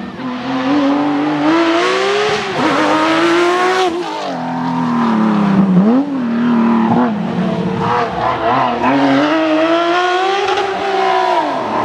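Porsche 911 GT3's naturally aspirated flat-six engine revving hard, its pitch climbing for about four seconds. It then winds down with quick throttle blips around the middle, pulls up again, and drops off near the end.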